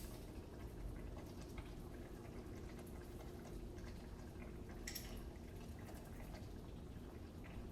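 Chicken breasts simmering in a tomato sauce in a skillet, a faint steady bubbling, with a small click about five seconds in.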